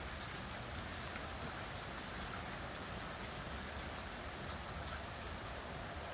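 Steady rain falling, an even hiss with no distinct drops standing out.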